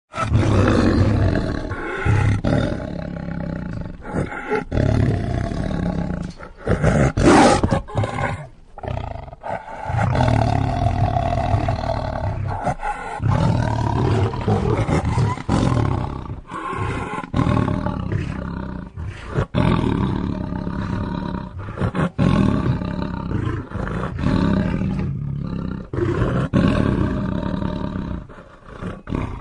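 Lion roaring and growling over and over, a run of deep, rough roars broken by short pauses, with the loudest roar about seven seconds in.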